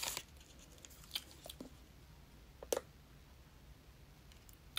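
Quiet room with a few faint clicks and one slightly louder tick near the middle, small handling or mouth sounds.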